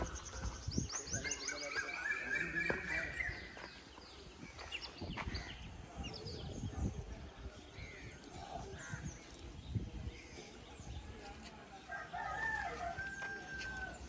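Birds calling: a long drawn-out call starting about a second in and a shorter one near the end, with quick high chirps early and scattered knocks in between.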